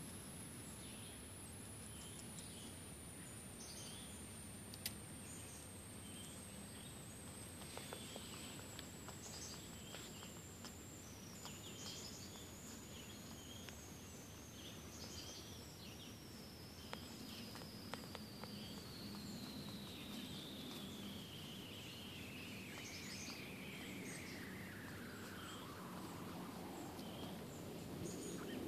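Quiet woodland ambience with faint, scattered bird chirps and a few soft ticks and rustles. A thin, faint high whistle slowly falls in pitch throughout.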